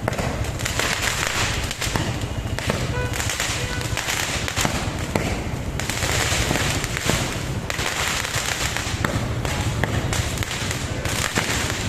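Fireworks and firecrackers going off without a break: a dense crackle of countless rapid pops that swells and eases in waves every second or two.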